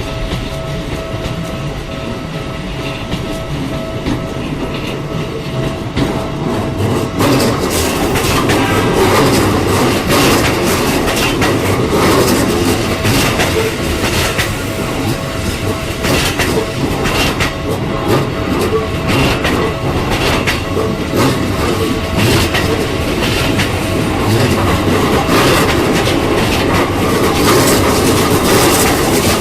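A Keikyu Line electric train passing close by over a level crossing, its wheels clattering over the rail joints. It grows louder about seven seconds in and stays loud with a run of rapid clicks.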